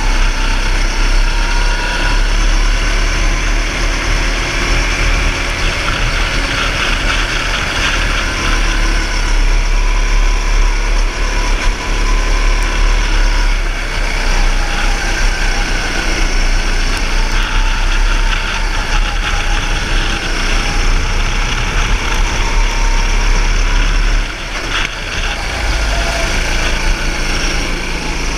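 Go-kart engine running at speed, heard from the driver's seat, its pitch rising and falling as the revs change through the corners. There is a brief dip in level near the end.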